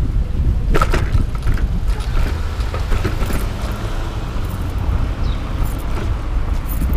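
Steady low rumble of wind on the microphone and road noise from a bicycle riding in city car traffic, with a sharp click just under a second in.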